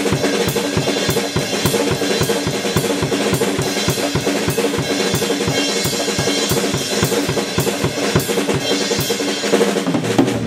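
Drum kit played fast in continuous paradiddle sticking around the drums and cymbals, over a steady bass drum kick of about four beats a second, stopping at the very end.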